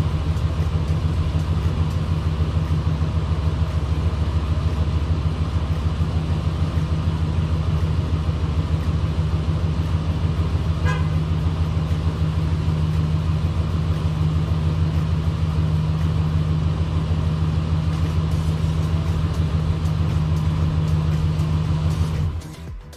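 Dodge Ram pickup's engine idling steadily with a low, even drone, then switched off, cutting out suddenly near the end.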